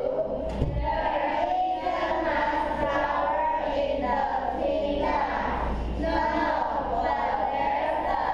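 Many children's voices at once, a class reading aloud together from their books in a continuous chanting drone.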